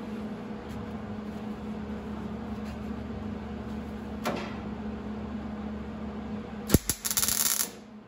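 MIG welder tack-welding a sheet-steel patch panel into a car floor pan: a sharp pop near the end, then just under a second of crackling arc, over a steady low hum.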